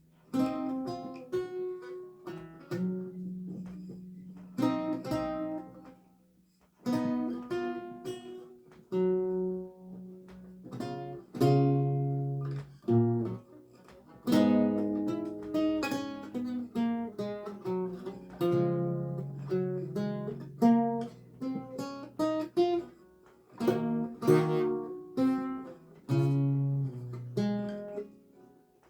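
Solo lute music: single plucked notes and chords that ring and fade, in phrases with short breaks between them.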